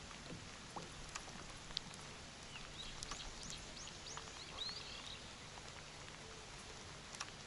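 Faint patter of light rain falling on a pond's surface, with a few scattered drop ticks. A bird calls in a short run of chirps in the middle.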